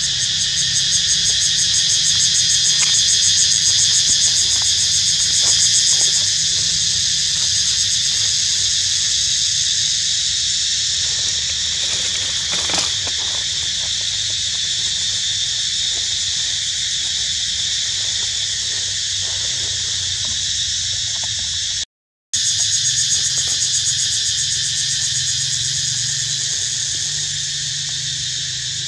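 Dense chorus of insects buzzing, shrill and high-pitched with a rapid pulsing texture, holding steady; it cuts out completely for a moment about 22 seconds in.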